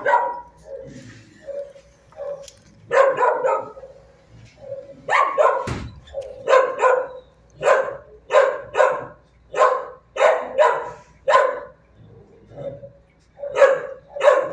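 Shelter dogs barking repeatedly in short clusters, roughly one bark a second, with a brief pause partway through. A single low thump comes about six seconds in.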